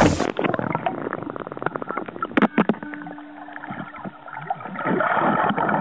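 Water sloshing and bubbling right at a microphone that is in or under the water, with a rapid crackle of clicks at first and a brief steady hum around the middle.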